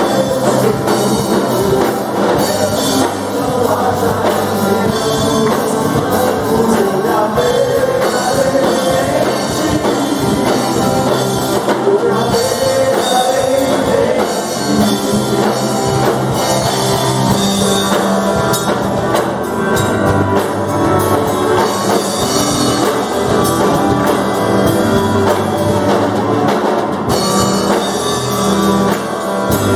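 Live worship band playing a congregational song in a rock style: drum kit, electric bass, electric guitar and keyboard, with voices singing the melody.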